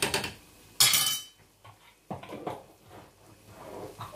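Wooden spatula stirring aubergine curry in a non-stick wok, with short uneven scrapes against the pan, and a sharp metal clink about a second in.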